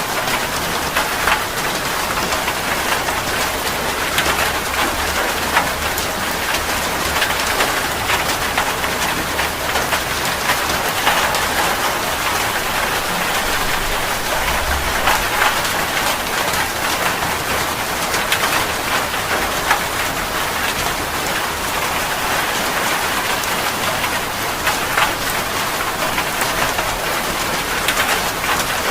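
Steady rain falling, with many separate drops striking close by as sharp ticks over an even hiss.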